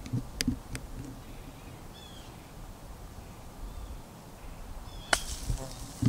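A golf club strikes the ball off sandy ground about five seconds in, a single sharp click. A bird chirps briefly in the background around two seconds in and again just before the strike.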